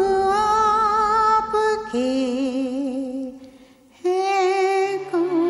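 A woman singing slow, long-held notes with vibrato, unaccompanied, on the words "hum ... aapke", with a short pause for breath partway through. Near the end a low steady tone comes in under her voice.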